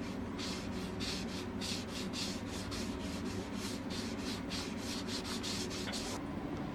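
Sandpaper rubbed back and forth by hand on an ash-wood axe handle: short hissing strokes, about three a second, stopping about six seconds in, over a steady low hum.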